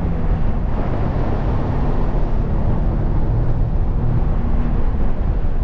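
Nissan 370Z roadster's 3.7-litre V6 running under way, heard from the open-top cabin mixed with a steady rush of wind and road noise.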